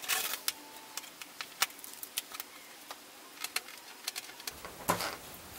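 Plastic sheeting crinkling and crackling in short, irregular bursts as it is peeled off and handled. It is loudest right at the start and again about five seconds in.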